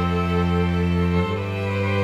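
Background music of held string chords, changing to a new chord a little over a second in.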